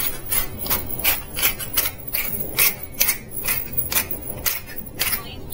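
Hand-twisted pepper mill grinding peppercorns: a steady run of short crunching clicks, about four a second, as the top is turned back and forth.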